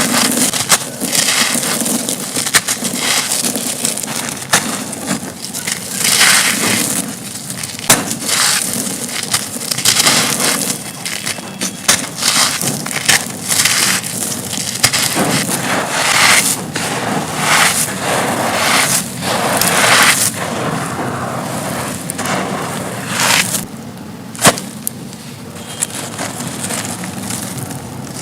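Soft, dry, dusty concrete chunks being crushed and crumbled, a continuous crunching and crackling with frequent sharp snaps, a little quieter near the end.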